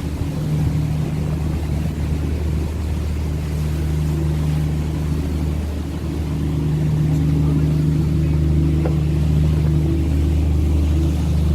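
Sightseeing river cruise boat's engine running with a steady low drone, heard from on board, growing slightly louder about two-thirds of the way through.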